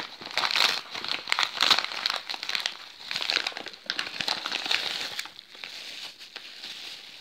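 Padded paper mailer and plastic bubble wrap crinkling and crackling as they are handled by hand and pulled open. The sound comes in dense bursts for about five seconds, then grows fainter as the bubble-wrapped figure comes out.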